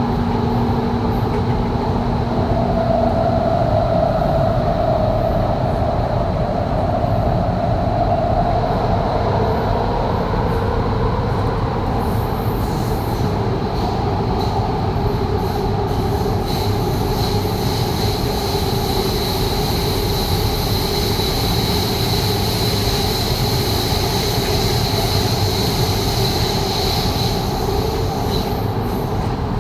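Doha Metro train running between stations, heard from inside the carriage: a steady rumble of wheels and running gear, with a high thin whine that grows stronger from about halfway through.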